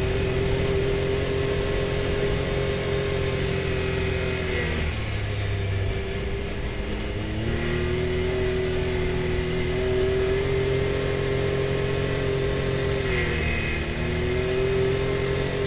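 Can-Am Maverick X3 side-by-side with a turbocharged three-cylinder engine, running under load on a gravel trail. The engine note sags about four and a half seconds in, climbs back a few seconds later, and dips and rises once more near the end as the throttle is eased off and reapplied.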